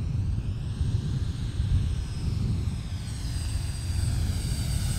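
Aircraft passing: a steady low rumble with faint high whines that slide up and down in pitch.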